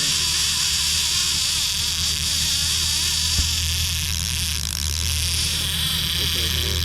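Fishing reel drag buzzing steadily as a big salmon strips line off against it, over the low hum of the boat's motor.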